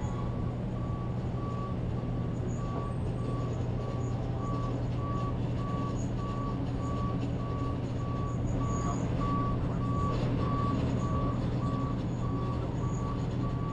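Leaf-collection truck backing up: its reversing alarm beeps steadily at about two beeps a second over the low, even hum of its running engine.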